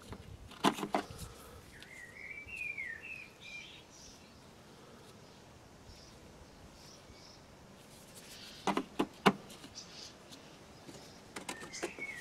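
Steel caliper drive keys being handled in a plastic tool case: a few sharp clicks and clacks about a second in, and a quick cluster of them about nine seconds in. A bird chirps in short warbling phrases about two to three seconds in.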